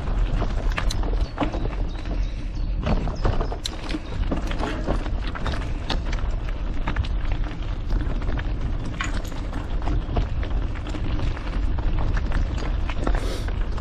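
Mountain bike ridden along a rough trail, heard through a GoPro: a steady low rumble of tyres and wind on the microphone, with frequent irregular rattles and clicks as the bike goes over bumps.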